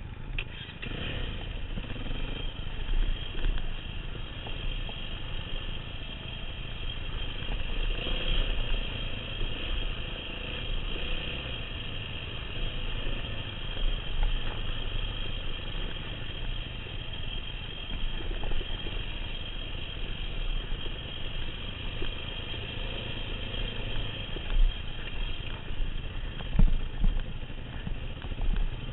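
Yamaha WR250F dirt bike's single-cylinder four-stroke engine running as the bike goes down a rocky trail, with rattling from the bike over the rough ground and a few sharp knocks near the end.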